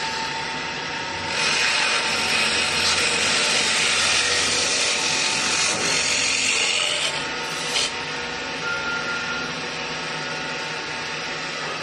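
Automatic wood-turning lathe with its cutters shaving the profiles of two spinning wooden table legs. The cutting noise is loudest from about a second and a half in to about seven seconds. It then drops back to the machine's quieter steady running, with one short click near eight seconds.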